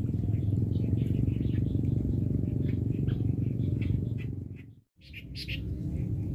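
A steady low rumble with small birds chirping over it. The sound fades out to silence for a moment about five seconds in, then returns.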